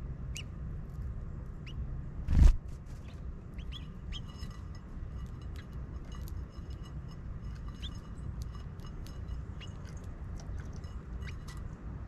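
Small songbirds giving short, high chirps scattered through, over a low steady rumble. A brief loud thump comes about two and a half seconds in.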